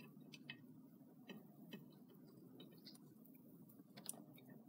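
Near silence: faint room hum with a few soft, irregular ticks and light rustles from a hand arranging shredded cabbage on a baguette sandwich.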